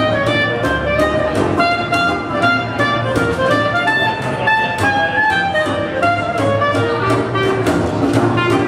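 A small jazz band playing a swing tune live: a clarinet carries the melody over a plucked upright double bass keeping a steady beat.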